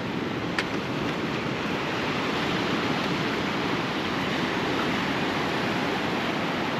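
Sea waves washing steadily onto a rocky shore, with a single sharp click about half a second in.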